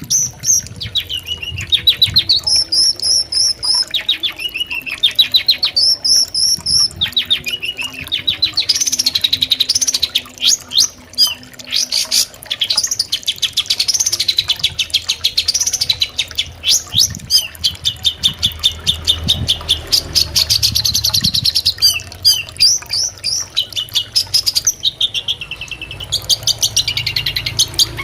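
Long-tailed shrike (cendet) singing a loud, fast chattering song: long runs of rapid repeated high notes, some trills sweeping up and down.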